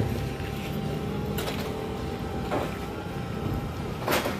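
City street traffic: a steady engine hum with three brief whooshes spread through it, the loudest near the end.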